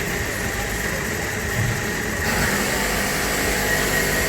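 Automated bottling-line machinery running steadily: a constant mechanical hum with a thin high whine. It gets louder about two seconds in.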